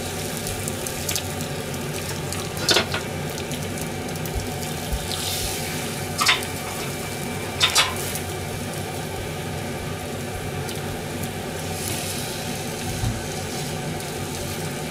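Omelette-wrapped sandwich pieces frying in a pan, a steady sizzle as they sit on their cut faces to brown. A few sharp clicks of chopsticks against the pan, one a quick double, in the first half.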